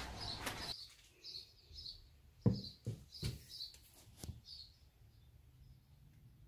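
A small bird chirping outside, a short call repeated about three times a second, fading out about halfway through. Over it, a few sharp knocks and taps about two to four seconds in, the first one the loudest.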